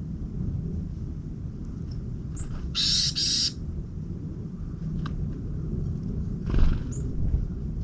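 Two harsh, raspy bird calls in quick succession about three seconds in, with a few faint high chirps, over a steady low rumble. A short loud knock comes about two-thirds of the way through.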